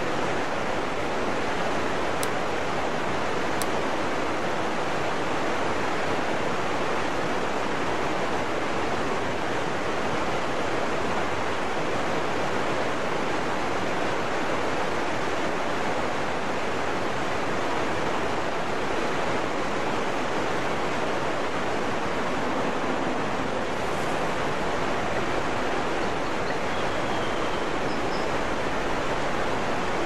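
Waterfall pouring: a steady, even rush of falling water with no change in level.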